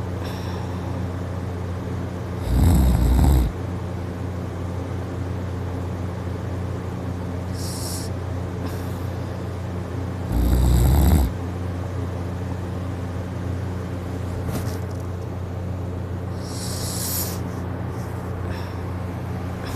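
A person snoring loudly in deep sleep: two loud snores about eight seconds apart, each lasting about a second, over a steady low hum.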